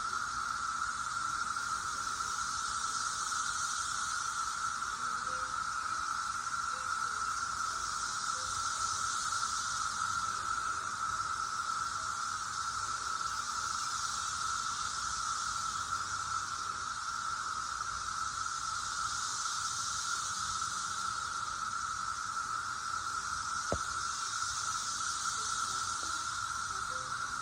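Chorus of Brood X periodical cicadas: a steady, unbroken drone with a higher hiss above it that swells and fades about every five or six seconds.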